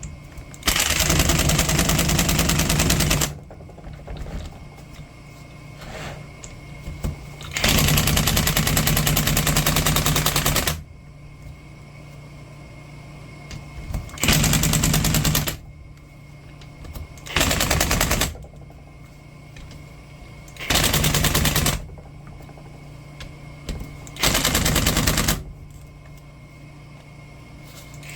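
Impact wrench hammering bolts in six bursts of about one to three seconds each, the longest near the start and around the middle, while the rebuilt skid-steer hydraulic drive motor is being bolted back together.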